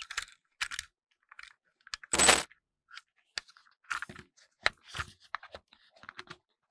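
Hard plastic toy train engines clicking, tapping and rattling as they are handled and turned over, with one louder burst of noise about two seconds in.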